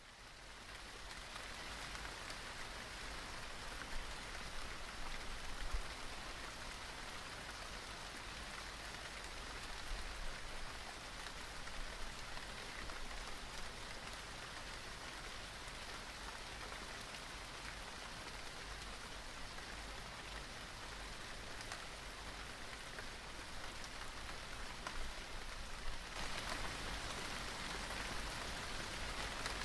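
Steady rain falling, an even hiss with scattered drop ticks that fades in over the first couple of seconds and grows a little heavier near the end.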